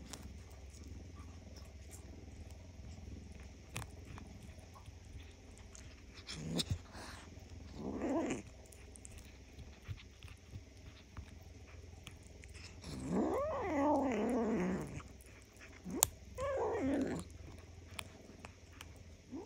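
Black kitten growling over a piece of raw meat on the bone as it eats: a low steady rumble, broken by three louder drawn-out growls that rise and fall in pitch. The growls come about eight, thirteen and sixteen seconds in, and the middle one is the longest.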